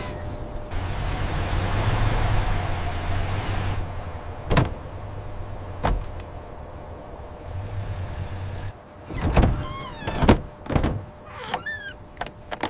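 Mechanical sound effects. A rushing noise lasts a few seconds, then come two sharp knocks. Near the end there is a cluster of knocks and short falling squeaks.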